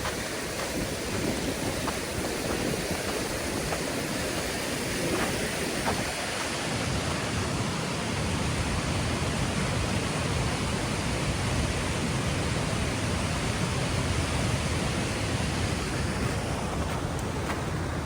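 Steady rushing of fast-flowing water from a waterfall, an even noise with no breaks.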